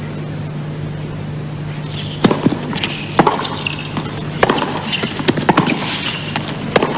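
Tennis rally on a hard court: racquets striking the ball about once a second from roughly two seconds in, with short sneaker squeaks between the shots, over a steady low background hum.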